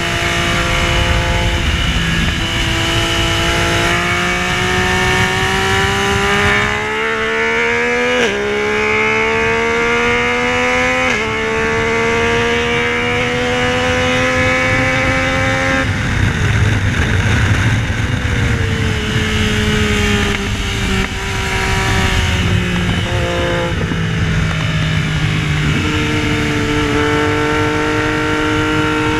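Yamaha Tracer 900's 847 cc inline-three engine at racing speed, revving up through the gears with two quick upshifts about 8 and 11 seconds in. Around the middle it comes off the throttle and winds down, then runs on at part throttle and picks up again near the end.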